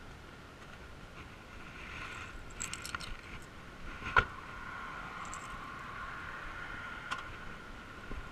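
Light jingling clicks as gear is handled on a car's back seat, then a car door shut with one sharp thud about four seconds in, and a smaller click near the end. A faint steady high tone runs underneath.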